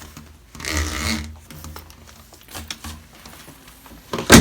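Handling noises while unpacking vacuum cleaner parts: a short rustle of packaging about a second in, a few light clicks, then a single sharp knock near the end, the loudest sound.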